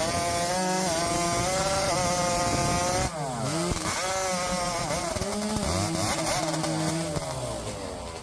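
Racing chainsaw at full throttle cutting through a log, its pitch dipping and recovering as it loads in the wood. The cut breaks off briefly about three seconds in, starts again, and the saw dies down near the end.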